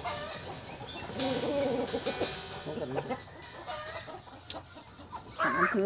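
Short pitched animal calls, one after another, the loudest near the end.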